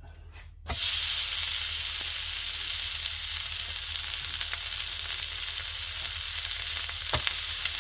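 Food sizzling steadily on a hot electric griddle, starting suddenly less than a second in. There is a single sharp click near the end.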